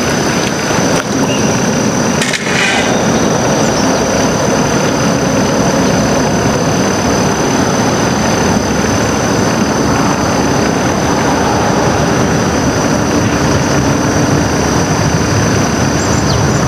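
Steady rain falling, a loud even hiss of drops on the water and on nearby surfaces, with a thin steady high-pitched tone running underneath and a single brief knock about two seconds in.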